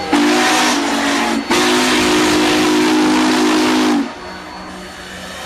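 Union Pacific 844 steam locomotive's whistle blowing a chord of several notes over a heavy hiss of steam. There is a short blast, then a longer one of about two and a half seconds, and the pitch sags as it shuts off.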